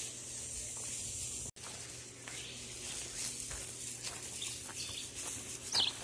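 Outdoor rural ambience: a steady high hiss with faint rustling, broken by a split-second dropout about a second and a half in, and a bird chirping near the end.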